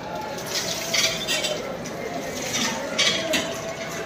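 Clinking and clattering of metal dishes and utensils, several sharp clinks a second at irregular intervals, over a steady low background hubbub.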